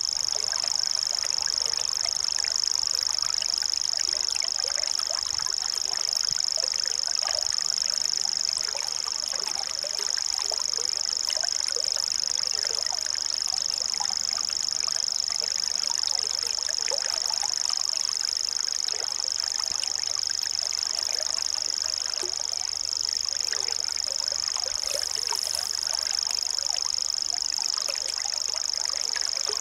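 A bird giving a continuous, high-pitched, sewing-machine-like trill that runs without a break, over a background of scattered small chirps and ticks.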